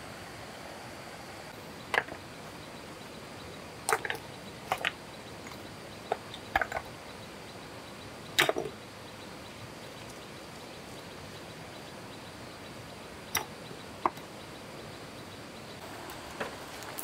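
Rocks knocking against one another as stones are set in place by hand: scattered sharp clacks every second or two, over a steady hiss of flowing stream water.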